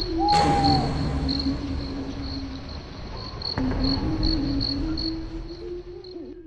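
Night ambience of crickets chirping over a low steady hum, with a brief swish near the start, fading out near the end.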